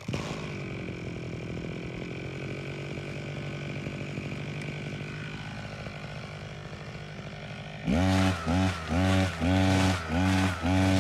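Small two-stroke brush cutter engine running steadily. About eight seconds in, a much louder sound starts, pulsing in regular bursts about one and a half times a second.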